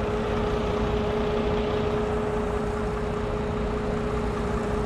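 Semi-truck diesel engine idling steadily, a constant whine over an even rumble.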